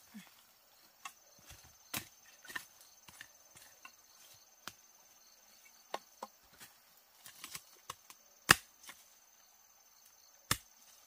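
Irregular chopping blows of a digging tool into soil and roots while digging out tubers: about a dozen sharp strikes of varying force, the loudest about eight and a half seconds in.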